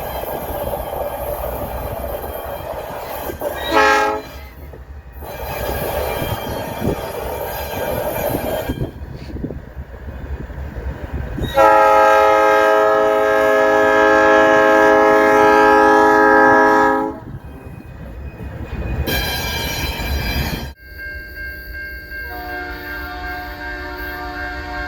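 Nathan Airchime New Cast P3 three-chime locomotive horns sounding: one short blast, then a long steady blast lasting about five seconds, and after a cut a fainter blast near the end. Between the blasts there is the rumble of passing freight trains.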